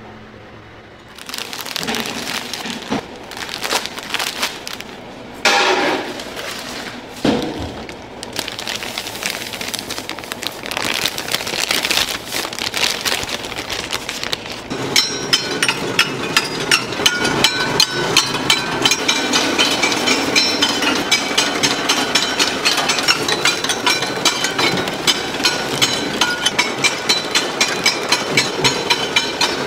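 Factory handling noise: irregular rustling and crackling with a few sharp knocks, as a plastic bag of seasoning powder is emptied into a steel hopper. About halfway in, a seasoning-sachet packaging machine with a multihead weigher takes over, running with a steady high whine and a regular click about twice a second.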